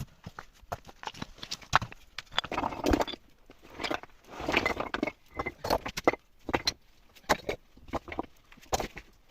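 Irregular knocks and clicks, with two short bursts of rustling about two and a half and four and a half seconds in.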